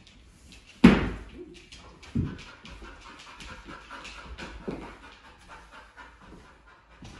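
A Rhodesian ridgeback/pit mix dog panting quickly, with a few thumps, the loudest about a second in.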